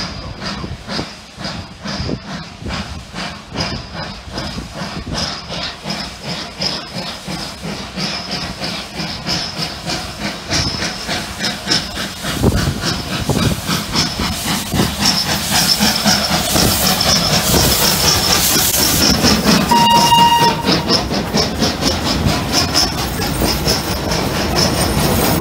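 FS class 640 steam locomotive 640.003 working through, its exhaust chuffing in a quick, even beat over a steady hiss of steam, growing louder as it draws near and passes. A short whistle toot sounds about two-thirds of the way through.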